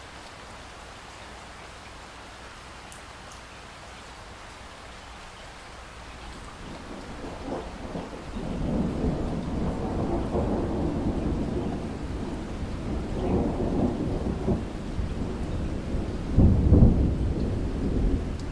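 Steady rain falling, with rolling thunder that builds about a third of the way in and rumbles on in several swells, loudest near the end.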